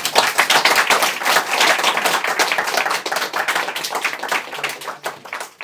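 Audience applauding at the end of a talk, many hands clapping at once and tapering off near the end.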